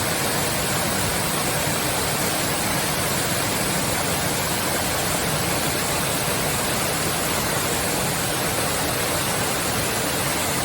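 A large waterfall with a 10 m, two-tiered drop: a heavy volume of water falling and splashing in a loud, steady rush that never changes.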